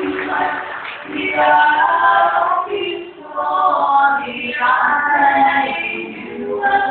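University choir singing in harmony, several voices holding notes together in phrases of a second or two that swell and ease off.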